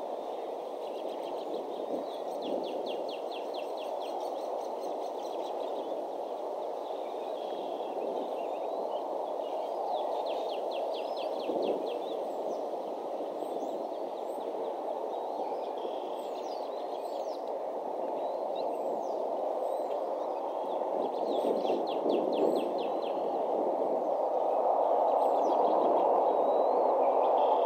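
Small songbirds singing several rapid trills of evenly repeated notes, with scattered short high chirps, over a steady rushing background noise that grows louder near the end.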